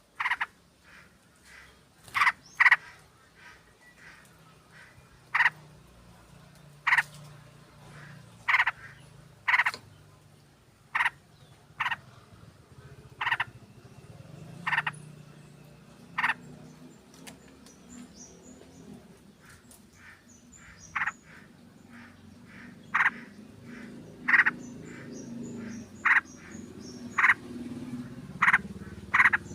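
Yellow-vented bulbul (trucuk) calls played as a lure track: short loud chirping notes, one every second or so, with fainter high chirps from other birds joining in the second half.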